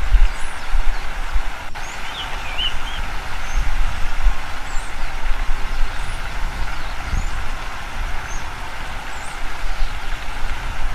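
Small birds chirping: short high chirps scattered throughout, with a brief warbling phrase about two seconds in. A strong, uneven low rumble under a steady hiss is the loudest part.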